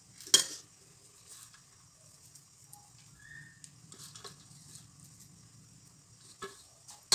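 A metal utensil clinks sharply against the kadai once just after the start, then only faint light ticks over a low, quiet hum, with another clink right at the end.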